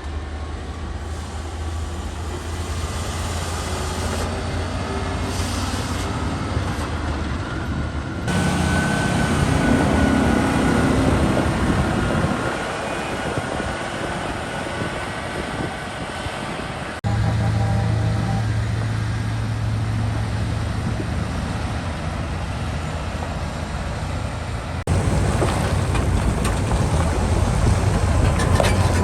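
Heavy diesel machinery running steadily, a low engine drone with mechanical noise over it, changing abruptly three times as different shots are cut together.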